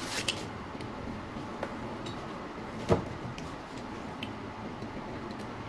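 Plastic wrapping crinkling briefly at the start as a compressor piston is unwrapped, then light handling clicks and one sharper knock about three seconds in, over steady workshop background noise.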